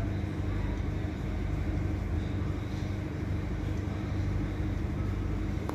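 Steady low drone of a ship's machinery, an even hum with a deep tone underneath that does not change.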